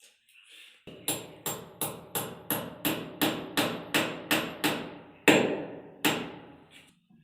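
A hammer striking repeatedly, about three blows a second, with the hardest blow a little after five seconds in and one last blow after it.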